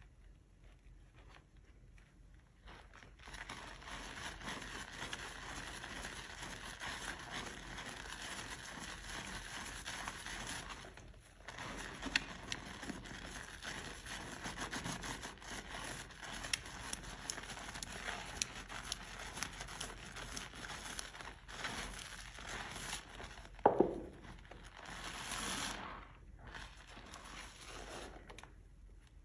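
Soaked, mushy soap being scuffed and scraped: a dense, crackly scratching that starts a few seconds in and breaks off briefly twice, with one sharp knock about two-thirds of the way through.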